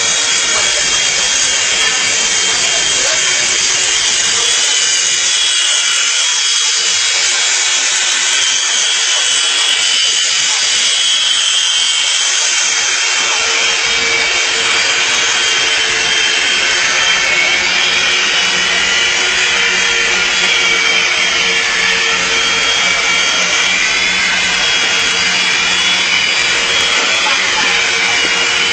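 Syma S026G mini R/C helicopter's small electric motors and rotors running steadily, a high buzzing whine whose pitch wavers slightly up and down.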